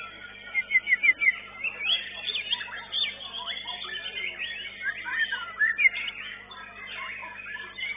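White-rumped shama (murai batu) song, several birds overlapping: fast, varied whistles and chirps that slide up and down, with a quick run of about five repeated notes in the first second or so.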